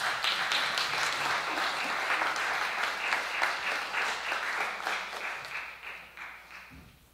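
Audience applauding, dying away over the last two seconds or so.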